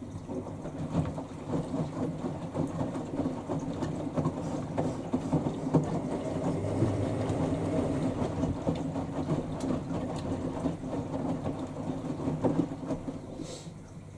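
Hoover Ecologic washer dryer draining: its pump pushes the wash water out in a steady rush of gushing water that dies away near the end.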